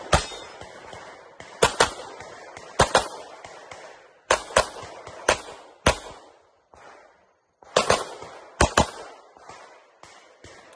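Pistol shots fired in quick pairs, the two shots of each pair about a fifth of a second apart, with breaks of roughly a second or more between pairs: double taps on each target during a practical-shooting stage.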